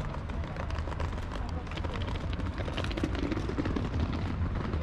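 City street ambience: a steady low rumble of traffic under the chatter of passers-by, with footsteps.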